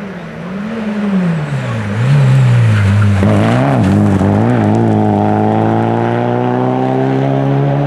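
Rally car driving past at speed, its engine note rising and dipping several times as the driver lifts and changes gear, then climbing in one long steady rise as it accelerates away.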